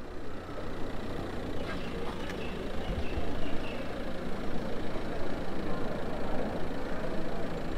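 A car's engine running as the car rolls slowly up a road toward the listener, a steady low hum.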